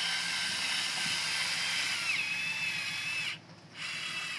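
Electric caulking gun's motor whining steadily as it extrudes a bead of urethane windshield adhesive. Its pitch drops a little about two seconds in, and it stops briefly near the end before running again.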